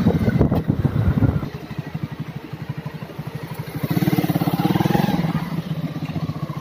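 Motorcycle engine running on the move with a steady rapid beat. It drops quieter about a second and a half in, then picks up louder again about four seconds in.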